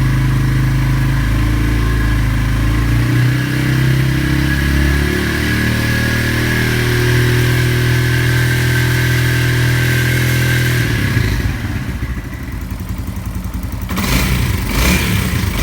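Yamaha Fazer 150 single-cylinder engine running steadily, with a thin high whine over it. About eleven seconds in, the sound turns rougher and uneven, with a few knocks near the end.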